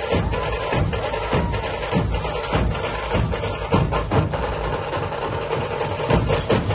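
Dhol-tasha drumming: deep dhol beats repeating steadily, with fast, sharp tasha strokes over them.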